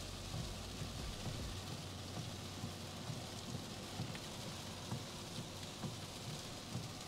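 Heavy rain pelting a car's roof and windshield, heard from inside the cabin as a steady hiss with many small irregular taps.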